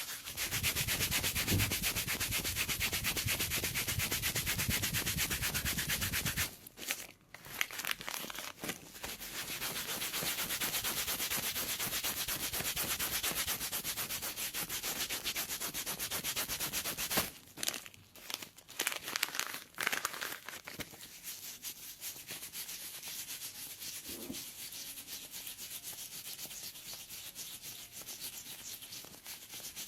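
Rapid, repeated scraping of a pedicure tool across dead, infected skin on the sole of a foot affected by athlete's foot. The strokes come in quick runs with short breaks about a third of the way in and again past the middle, and are softer near the end.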